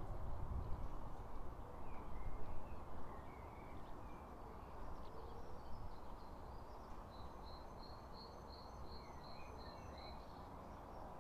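Garden ambience: wind buffeting and rumbling, in stronger gusts during the first few seconds, with songbirds chirping. Later on, one bird repeats a high note about six times.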